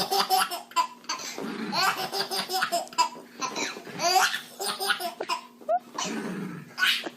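Baby laughing hysterically in repeated bursts of giggling.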